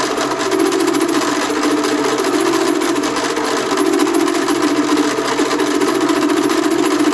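Kommunar 2M112 drill press spindle running at about 1000 rpm while a milling cutter cuts a keyway in a metal shaft: a steady machine hum with a fast, even chatter from the cutter biting the metal. The speed is low enough that the operator thinks more revs are needed.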